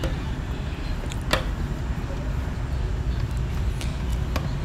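A screwdriver and hands working the terminal screws of a nine-terminal forward/reverse motor switch: a couple of sharp clicks, about a second in and near the end, over a steady low background rumble.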